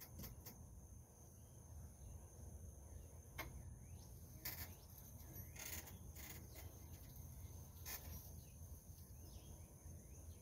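Near silence: faint rural outdoor ambience, a steady high insect drone with a few faint bird chirps and scattered light clicks.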